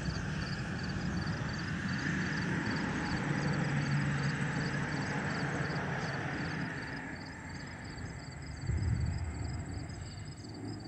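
Distant jet roar of an Airbus A330-900neo's Rolls-Royce Trent 7000 engines passing overhead, swelling and then fading away after about seven seconds. A rhythmic high chirping, a few times a second, runs under it, and a brief low rush comes about nine seconds in.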